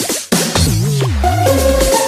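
Electronic dance music: a brief break near the start, then a wobbling bass line under held synth notes.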